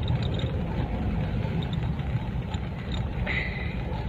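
A car driving, with steady engine and road rumble heard from inside the cabin. A short, high-pitched sound cuts in just after three seconds.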